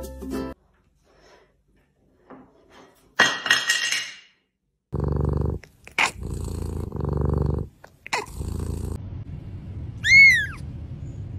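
A pet animal growling in two low stretches of about half a second and a second, with other short noises around them and a brief high call that rises and falls near the end.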